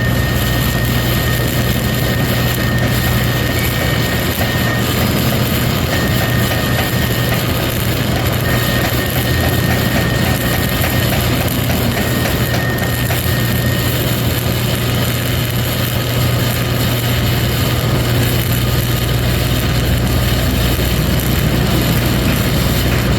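Self-shielded flux-cored arc welding with Lincoln NR-233 5/64" wire: the arc hisses and crackles steadily, over a constant low hum from the welding machine.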